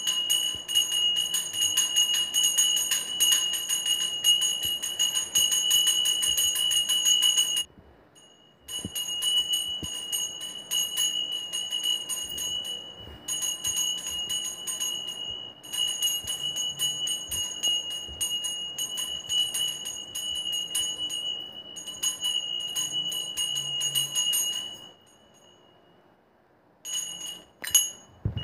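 Puja hand bell rung continuously, its clapper striking rapidly, with a clear high ringing tone. It breaks off for about a second around 8 seconds in, stops about 25 seconds in, then rings briefly twice near the end.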